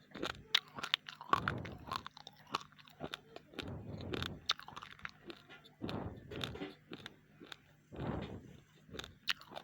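A person chewing raw, uncooked rice close to the microphone: irregular sharp crunches of the hard grains, with softer mouth and chewing sounds between them.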